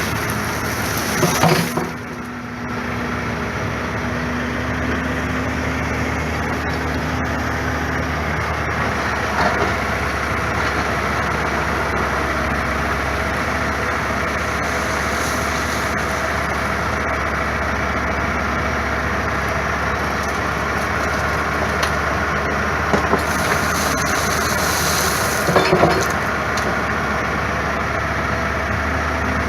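Heavy diesel plant machinery running steadily, with a few brief knocks and clatters.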